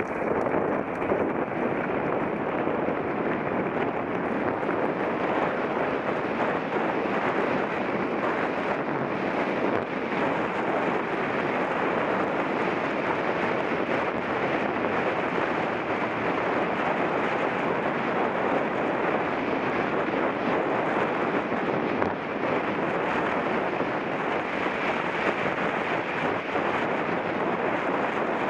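Steady rush of wind on the microphone mixed with the tyre noise of a mountain bike being ridden, unbroken throughout.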